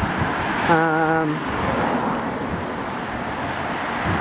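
Steady road traffic noise from cars passing on a busy main road, with a short low hum about a second in.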